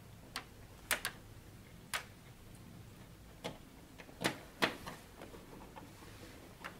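Small plastic clicks and taps, about eight of them at uneven intervals, as a front-panel USB 2.0 header connector is worked by hand onto a motherboard's pin header.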